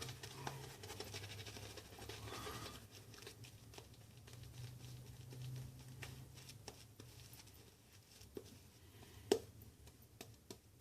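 Faint scraping of a Merkur 39C slant-bar double-edge safety razor drawn over lathered stubble in short touch-up strokes, with scattered small clicks and a sharper click about nine seconds in.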